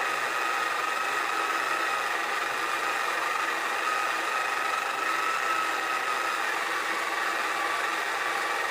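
Small electric motor of a children's mini pottery wheel running steadily with the wheel head spinning: a constant high whine that wavers slightly in pitch over an even hum.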